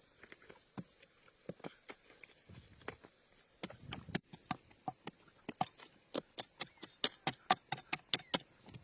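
A run of short, sharp knocks, scattered at first, then coming several a second over the second half, loudest near the end.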